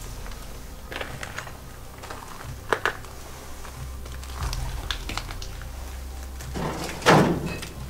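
Footsteps crunching over loose rubble and broken tile, with scattered small clicks and crackles of debris underfoot, and one louder scraping crunch near the end.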